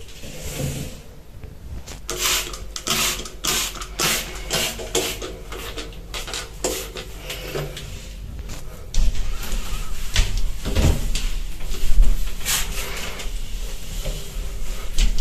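Glass shower screen being cleaned. For several seconds there is a run of short hissing strokes, about one or two a second. Then comes steadier rubbing of a cloth on the glass, with low bumping noise on the microphone.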